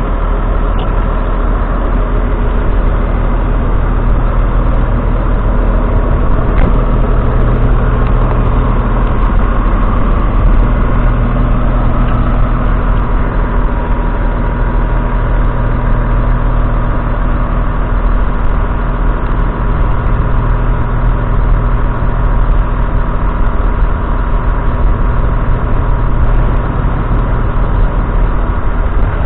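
Claas Axion 830 tractor's 6.7-litre six-cylinder diesel engine idling steadily.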